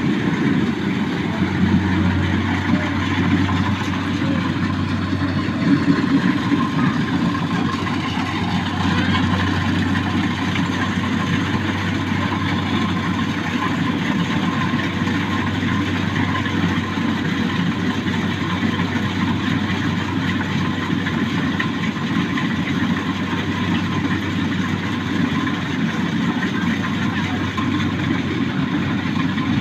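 Rice harvester's engine running steadily, a continuous drone with a low hum that does not change.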